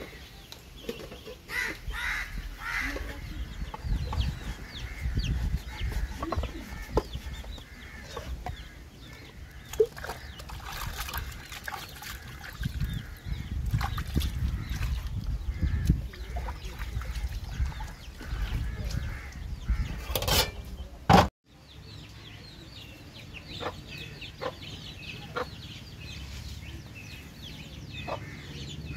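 Chickens clucking, amid scattered knocks and a low rumble. About two-thirds of the way through, a loud rush of noise cuts off abruptly, and short clucks and clicks continue after it.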